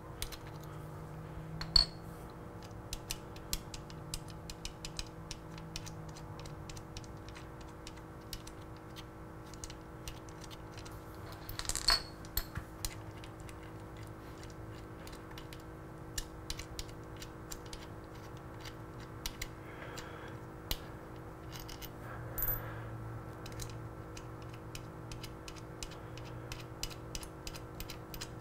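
Hand ratchet clicking in irregular runs and small metal clinks as bolts are worked out of a motorcycle's crankshaft cover. There are louder metallic knocks about two seconds in and again about twelve seconds in, over a steady low hum.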